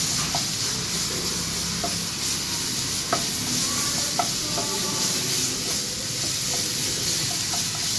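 Onion, green chilli and ginger-garlic paste sizzling steadily in a little oil in a kadai over a low flame, stirred, with a few light taps from the stirring spoon against the pan.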